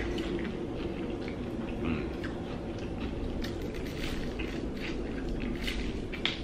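Two people biting and chewing fried chicken legs: irregular short wet smacks and bites over a steady low background hum.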